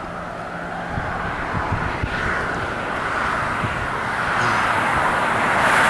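Highway traffic noise: a steady rush of tyres and engines that grows louder toward the end as a vehicle comes closer.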